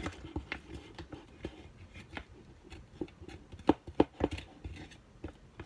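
Slime mixture of glue and cornstarch being stirred in a bowl: scattered soft clicks and taps of the utensil against the bowl, with two sharper ones a little past the middle.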